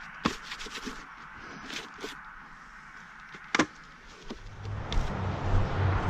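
Footsteps crunching over leaves and twigs, with a few sharp snaps. From about four seconds in, a low rumbling noise grows louder.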